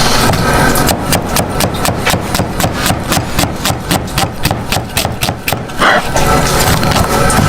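Rapid, even chopping strokes, about five a second, kept up for some five seconds and then stopping, over a steady scraping and sizzling background of food being cooked.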